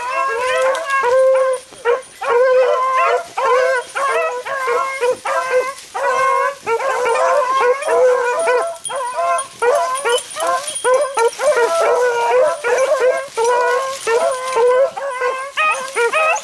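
Beagles baying in rapid, overlapping calls at close range, several a second with hardly a pause: hounds giving tongue as they run a rabbit's scent trail.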